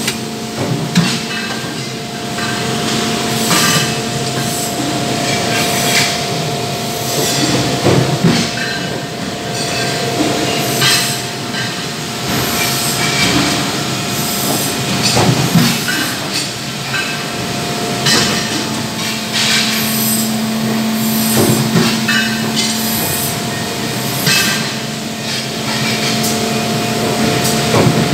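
Industrial machinery running: a steady mechanical hum with several fixed tones, under irregular metallic clanks and knocks every few seconds.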